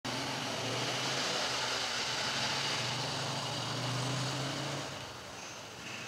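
Train running on the line: a steady rumble with a hiss over it, dropping in level about five seconds in.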